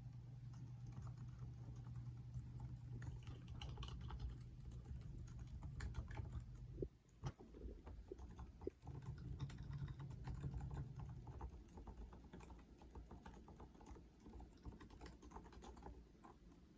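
Typing on a modified Topre Realforce keyboard with electrostatic capacitive rubber-dome switches: a fast, continuous run of soft, muted key strikes. A low steady hum sits under the typing for much of the time, dropping out twice briefly.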